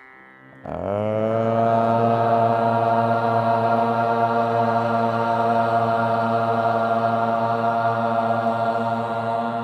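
A group of people chanting a mantra together in unison: one long held note that starts about a second in, sliding briefly up into pitch and then held steady.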